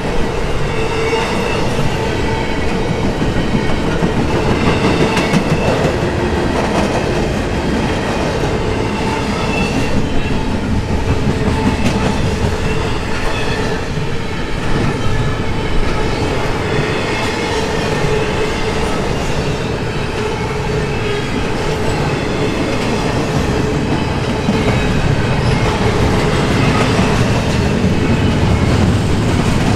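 Double-stack intermodal container cars of a freight train rolling past close by: a steady, loud rumble and clatter of steel wheels on the rails.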